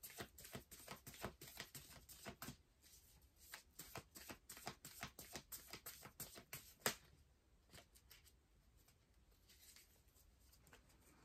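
Tarot deck being shuffled by hand: a quick run of faint card clicks and flicks for about seven seconds, ending in one sharper snap, then only a few soft ticks.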